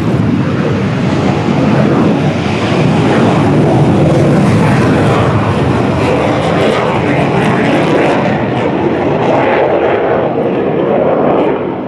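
Loud aircraft engine noise, an even rushing sound that builds over the first couple of seconds, holds steady, and drops away just before the end.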